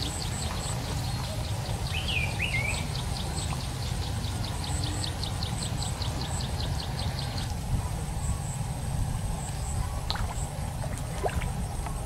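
Outdoor canal-side ambience: a steady low rumble, with a rapid run of high chirps at about six a second that stops about seven seconds in, and a short warbling bird call about two seconds in.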